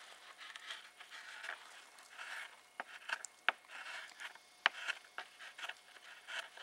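A sharp belt knife shaving curls off a soft cedar stretcher board: short, uneven scraping strokes with a few sharp ticks in between.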